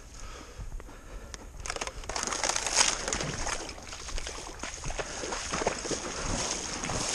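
A person wading through shallow river water, sloshing and splashing with each stride; the splashing starts and grows louder about two seconds in.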